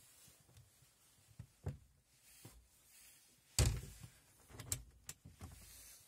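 Wooden cupboard doors being pushed shut: a solid knock about three and a half seconds in, then a couple of lighter clicks as the doors meet and catch.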